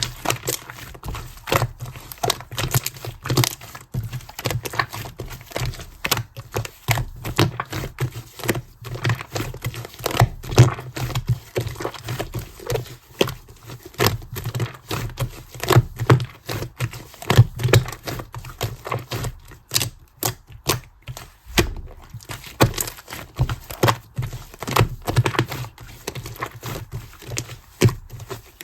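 Clear green slime being squeezed, pressed and pulled by hand, making a continuous run of irregular sticky clicks, crackles and pops.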